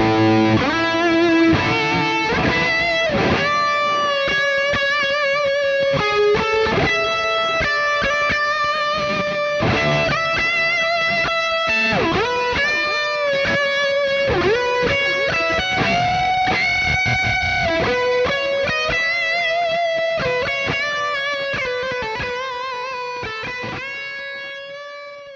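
Electric guitar, a Photogenic Les Paul-style, played through a NUX MG-300 multi-effects processor on its lead tone preset. It plays a single-note lead melody with string bends, wide vibrato and long sustained notes, and the last note fades out near the end.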